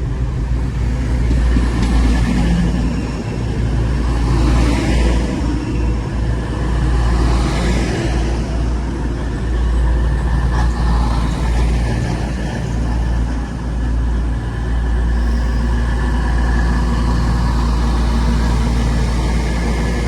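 East Midlands Railway Class 222 Meridian diesel multiple unit passing through the station, its underfloor diesel engines running with a steady low drone and wheel and rail noise that swells for a few seconds.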